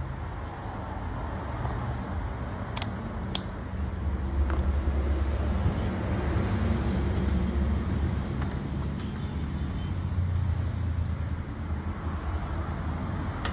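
Low, steady engine rumble of a motor vehicle running, growing louder about four seconds in. Two sharp ticks about half a second apart come near three seconds in.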